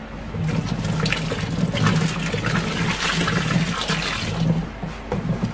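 Caustic soda solution, about 2 litres, poured from a plastic bowl into a bucket of nitrosol mixture: a continuous splashing pour that starts about half a second in and eases off near the end.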